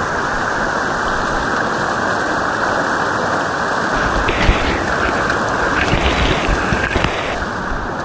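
Rushing whitewater of a river rapid, a steady loud rush with low thumps in the second half.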